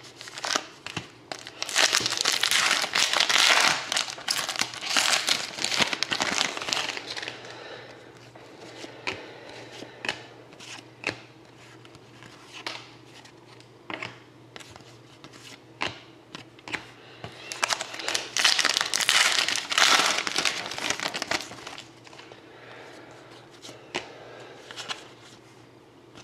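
Trading card pack wrappers being torn open and crinkled, in two loud stretches of rustling. Between them come scattered light clicks of cards being handled.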